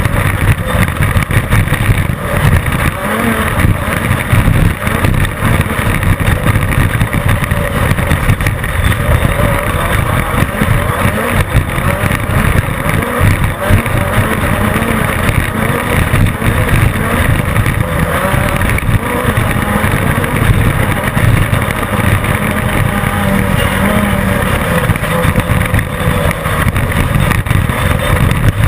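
Class 10 off-road race car driven at race pace over rough desert ground, heard from on board: a loud, constant din of engine and driveline, with frequent jolts and rattles from the chassis and suspension.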